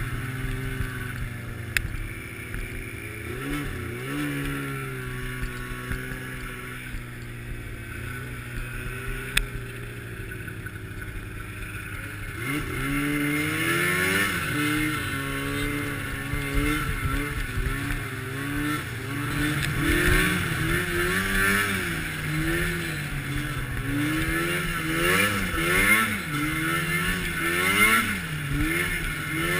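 Arctic Cat snowmobile engine running at a fairly steady pitch, then from about twelve seconds in revving up and down again and again as the throttle is worked along the trail. Two brief clicks sound in the first half.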